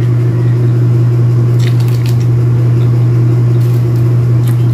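A loud, steady low hum with no break, and over it a few short crackles around a couple of seconds in and again near the end as pomelo segments are pulled apart by hand.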